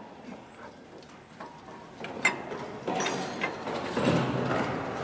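Metal parts being handled and worked: a sharp click about two seconds in, then a run of clicks and scraping, clanking metal that grows louder toward the end.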